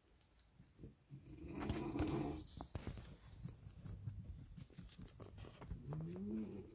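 A sleeping pet dog snoring: one louder breathy snore about two seconds in, with light clicks and scratching throughout and a short rising whine or groan near the end.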